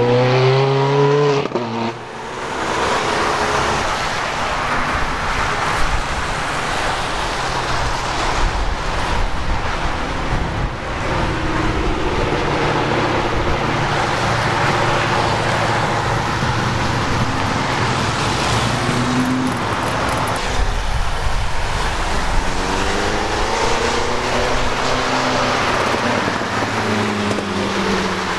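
A stream of sports cars accelerating away on a wet road, over a steady hiss of tyres on wet pavement. A Ferrari F430 Spider's V8 rises in pitch as it pulls past at the start. Further engines pass around the middle, and another rises in pitch as it accelerates near the end.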